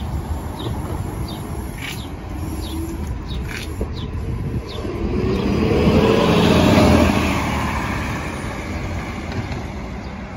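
New Flyer XD40 diesel transit bus pulling away from a stop and passing close by. The engine and tyre noise swells to its loudest about six to seven seconds in, then fades as the bus moves off. A few faint bird chirps are heard in the first few seconds.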